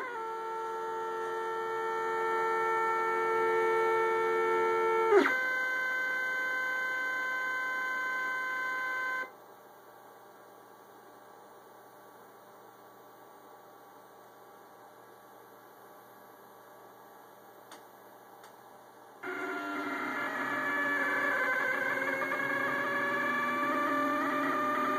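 Stepper motors of a Rostock Max delta 3D printer whining as they drive the carriages: steady tones for about five seconds, a step up in pitch, then a stop about nine seconds in. After some ten seconds of quiet they start again, with several tones gliding up and down as the effector moves across the bed.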